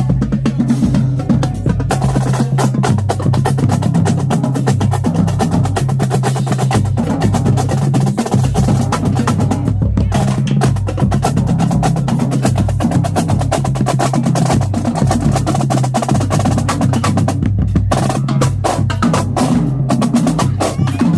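Marching drumline playing a fast cadence: dense, rapid snare drum strokes and rolls with sharp rim clicks, over a steady low bass.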